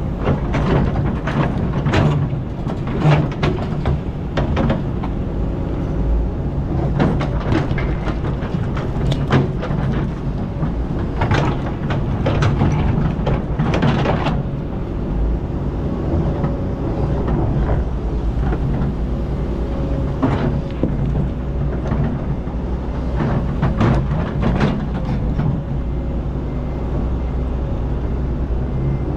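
Kobelco hydraulic excavator's diesel engine running steadily under load while the steel bucket scrapes and knocks through sand, gravel and rocks, with frequent scrapes and knocks in the first half and only a few after that.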